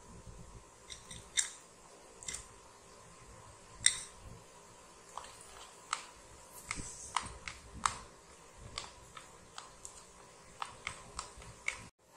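Light clicks and taps of a spoon against a plastic bowl as cashews and raisins are stirred into thick cake batter: a few scattered clicks at first, then a quicker run of taps from about five seconds in.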